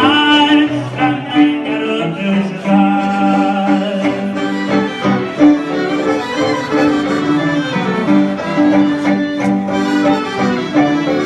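Instrumental dance music played by a live band, with a held melody line over a bass that alternates steadily between two low notes.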